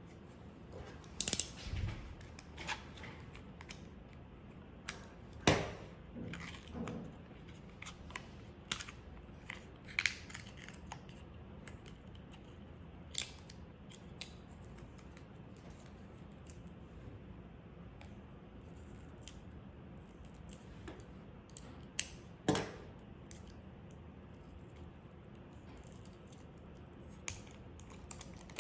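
Scattered small clicks, snaps and crinkles from hands handling a roll of decorative masking tape (washi tape), with a few sharper snaps, the loudest about five and a half seconds in and again near twenty-two seconds.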